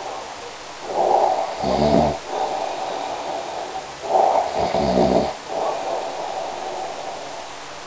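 A person snoring: two snoring breaths about three seconds apart, each ending in a low rattling buzz.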